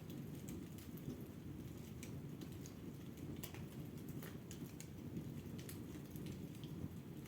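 Wood fire burning in a fireplace: a low steady rumble of flame with scattered sharp crackles and pops throughout.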